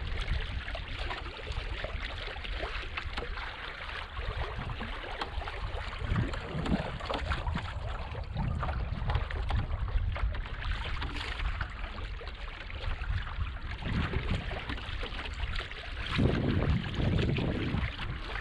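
Water rushing and splashing along the hull of a small wooden sailing kayak moving under sail in a light breeze, with wind rumbling on the microphone. The wash surges louder near the end.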